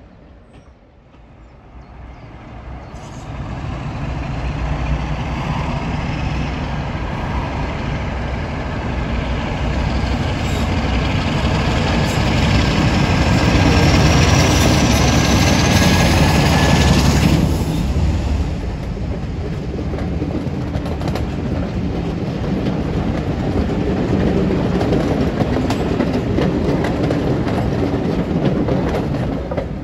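Class 47 diesel locomotive 47449 working a train past. It builds up over the first few seconds, is loudest around the middle with a faint rising whine, drops back sharply just after halfway, then carries on steadily before fading at the end.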